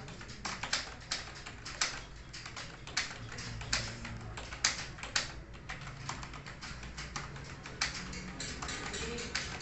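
Fast typing on a computer keyboard: a continuous, irregular run of key clicks, several a second, with some keystrokes louder than others, typed at about 55 words per minute in a timed speed test.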